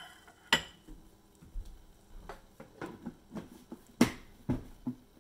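Ceramic plate set down on a stone countertop, giving a short ringing clink about half a second in, followed by several light knocks and clicks from handling. The sharpest knock comes about four seconds in.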